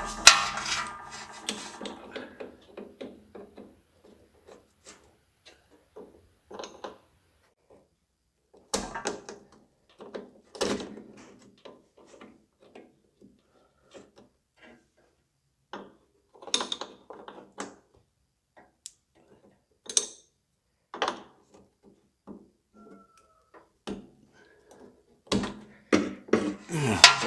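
Irregular knocks, clicks and clanks of hand tools and metal parts being handled, with a louder knock and brief ringing at the start and a cluster of clatter near the end.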